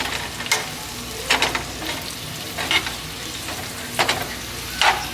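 Spinach sizzling in melted butter and garlic in a frying pan, with a utensil stirring and scraping against the pan in short strokes about five times.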